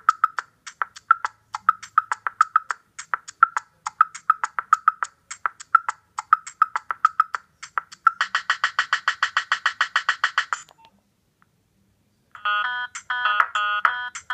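Nokia 3595 ringtones playing through the phone's small speaker: a tune made of quick sharp ticks, several a second, then a rapid buzzing pulse that cuts off suddenly about ten and a half seconds in. After about a second and a half of silence, another ringtone starts with a melody of beeping tones.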